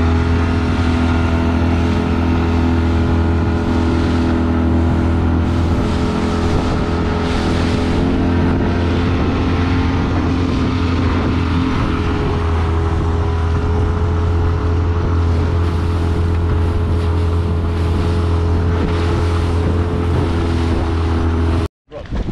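Outboard motor on an inflatable boat running steadily at cruising speed, a constant low drone with an even stack of tones, cutting off suddenly near the end.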